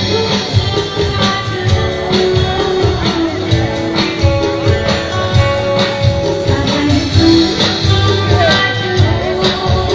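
Live band music over a PA system: a woman singing into a handheld microphone, backed by drums and keyboard keeping a steady beat.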